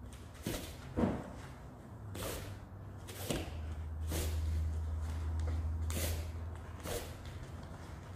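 Short, sharp hissing exhales, one with each jab, cross and front snap kick of a Taekwon-do sparring drill, about six in all at roughly one-second intervals, over a steady low hum.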